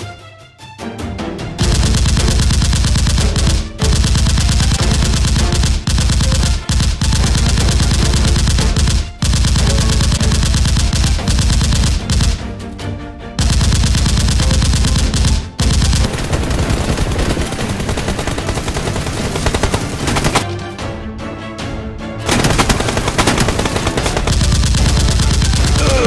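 Long bursts of rapid automatic gunfire, starting a second or two in and broken by a few short pauses.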